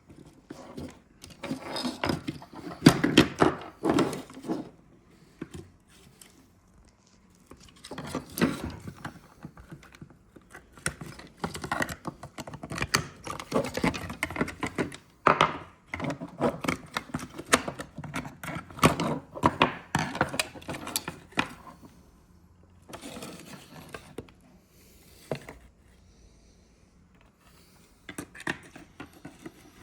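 Hand tools and the hard plastic and metal parts of a halogen leak detector clicking, knocking and rattling as it is taken apart, in busy bursts with a few quieter pauses.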